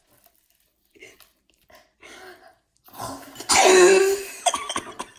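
A person coughs loudly once, about three and a half seconds in, on tasting food, after a few seconds of faint small mouth and handling noises.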